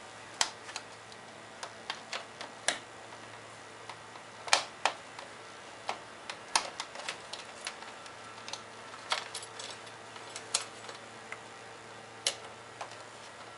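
Irregular sharp clicks and snaps of air cleaner hold-down clamps being worked onto the clamping points of a plastic air cleaner box, the loudest about four and a half seconds in.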